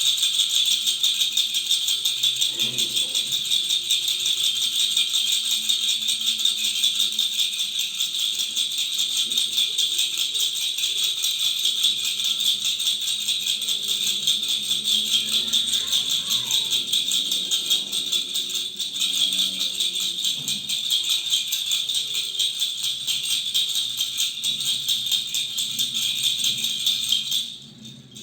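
A baby's toy rattle (khulkhula) shaken rapidly and without a break, giving a dense, bright, even rattle that cuts off suddenly near the end.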